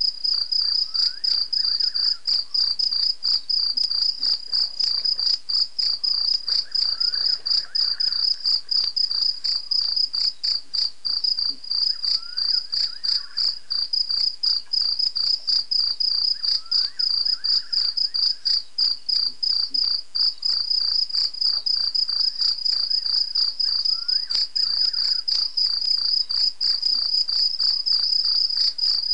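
Chorus of crickets: a loud, continuous high trill with rapid pulsing. A fainter, lower call repeats every five seconds or so.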